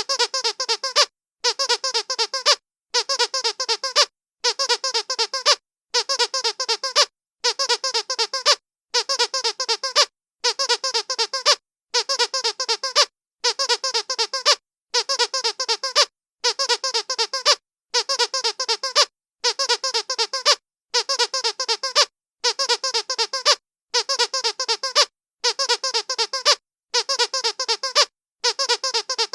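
Squeaky dog toy squeezed over and over: bursts of rapid squeaks, each about a second long, repeating evenly every second and a half with short silent gaps.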